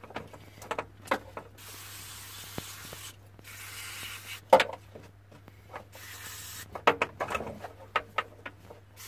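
Aerosol cleaner sprayed onto car wiring-harness connectors in three hissing bursts of about a second each. Sharp clicks and knocks come between the bursts, the loudest about halfway through.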